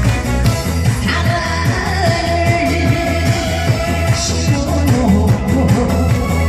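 Loud amplified music with a singer, over a steady rhythmic beat; one long sung note is held through the middle.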